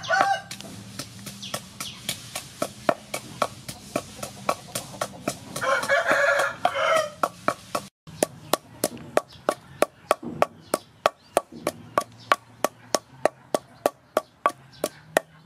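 Wooden pestle pounding dried chilies in a wooden mortar, a steady knocking at about three to four strokes a second. A rooster crows once about six seconds in.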